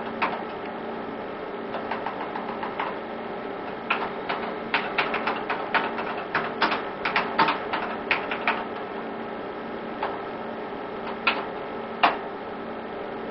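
Typing on a computer keyboard: a quick run of key clicks lasting about four seconds, then a few single clicks near the end, over a steady low hum.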